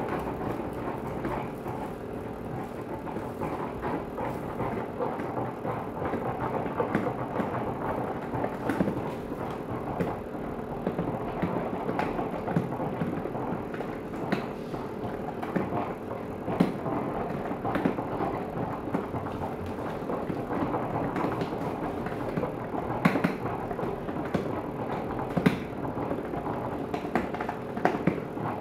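Tepal upright garment steamer running: a steady hiss with a low hum, and occasional sharp clicks as the steam head and hose knock against the hanger pole.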